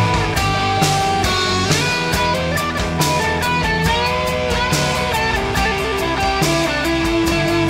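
Instrumental stretch of a skate-punk rock song: electric guitars played over a steady drum beat, with a lead line whose notes bend in pitch about halfway through.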